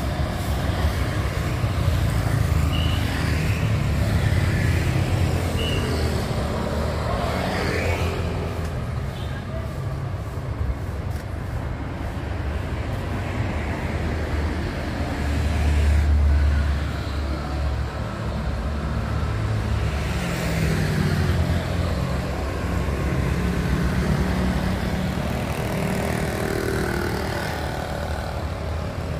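Street traffic: a steady rumble of passing car and motorbike engines and tyres, with one vehicle passing close and louder a little past halfway.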